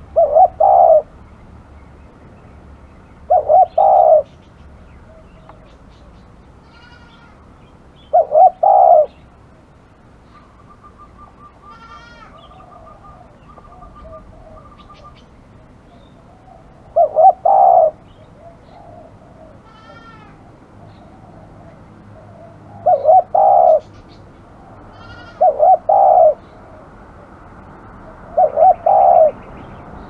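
Spotted dove cooing: seven short phrases of two or three low notes each, spaced a few seconds apart, with faint chirps of other birds in between.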